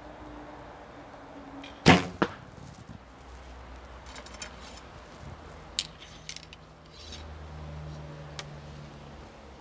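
Recurve bow shot: the string is released with one loud, sharp crack, followed a moment later by a second, quieter smack. A few light clicks follow later.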